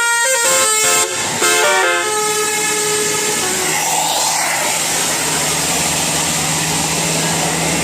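Bus 'telolet' melody horn (Basuri-type multi-trumpet electric horn) playing a quick run of stepping notes, then holding a lower note for a moment, before giving way to the bus engine running with a steady low hum under dense noise.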